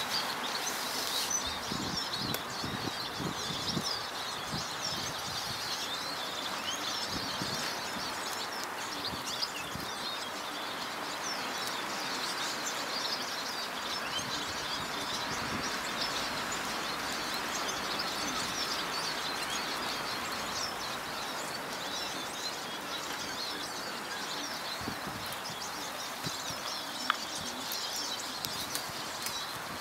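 Wild songbirds singing and chirping, many short overlapping calls throughout, over a steady outdoor hiss.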